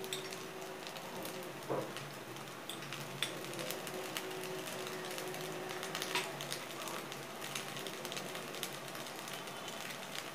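Bread rolls frying in a little oil in the cups of an appam pan: a soft sizzle with scattered, irregular crackles and pops from the hot oil.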